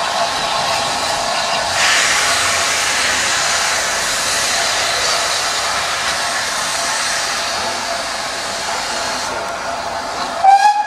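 Steam locomotives (SR King Arthur class 777 and BR Standard 73129) pulling away with a steady loud hiss of steam from their open cylinder drain cocks, which swells about two seconds in and fades near the end. Just before the end comes a short steam whistle blast, the loudest sound.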